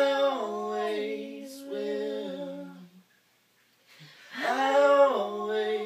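A man and a woman singing a wordless vocal harmony in long held notes, in two phrases with a short pause between them.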